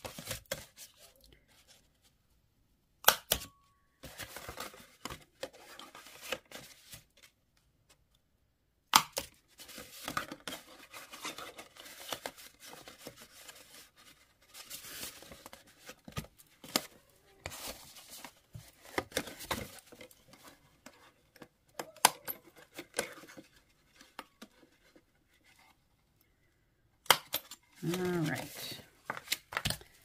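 Cardstock rustling as it is handled and folded, broken by a few sharp, loud snaps of a hand-held 1/8 inch hole punch punching through two layers of paper.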